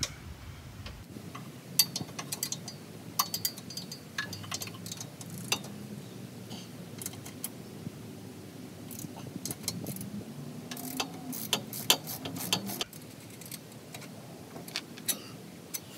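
Irregular metallic clicks and clinks of tools working the bolts of an old trailer tongue jack as it is unbolted.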